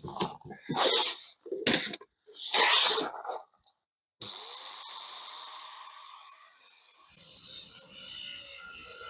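A few short clattering handling noises, then about four seconds in a power saw switches on, its motor whining up to speed and then running steadily.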